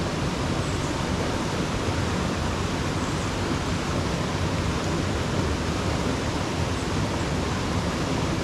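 Steady rush of a small mountain trout creek flowing over rocks, an even hiss that does not change.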